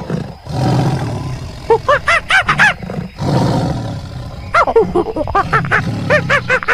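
Wild animal vocalizations: deep, rough growling roars alternating with quick runs of short, high calls that rise and fall in pitch, about five a second, one run about two seconds in and a longer one from near the middle.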